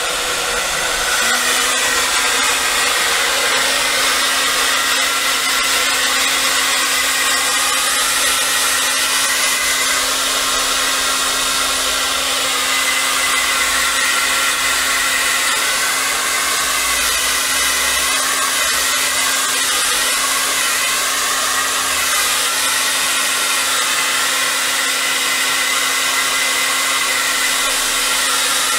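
Handheld hair dryer running steadily close over wet acrylic paint, a constant rush of air with a steady motor hum.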